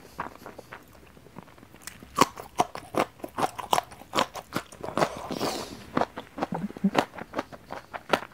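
Close-miked mouth sounds of someone biting and chewing a raw long bean: quiet at first, then a dense run of crisp crunches and wet clicks from about two seconds in.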